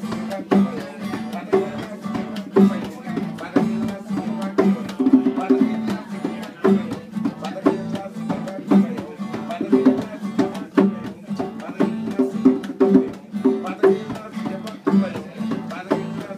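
Solo acoustic guitar played live, plucked and strummed in a steady rhythm.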